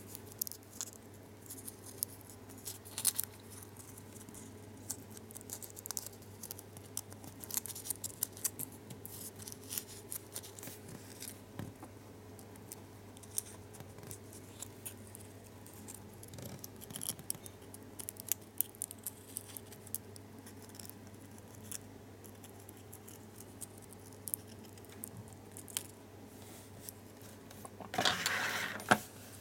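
Lotte Xylitol gum's foil wrapper being creased and pinched between fingertips while folded into a tiny origami boat: scattered small crinkles and clicks over a steady low hum. Near the end, a louder rustle of about a second.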